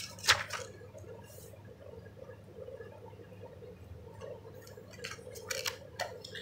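Paper pages of an instruction manual being turned and handled: a crisp rustle just after the start, then a few light rustles and taps about five to six seconds in, over a faint steady room hum.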